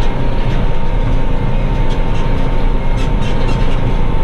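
Renault Ares tractor running steadily while pulling a round baler through rapeseed straw, heard from inside the cab: an even mechanical drone with a thin steady whine and light scattered clicks.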